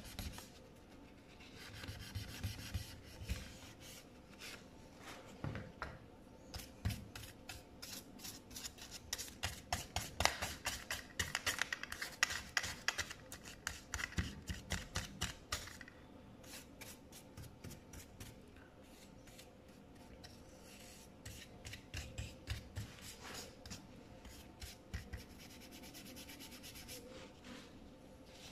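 A small brush scrubbing dirt off the inside of an opened MacBook's aluminium case, in many quick short strokes that come thickest through the middle and thin out toward the end.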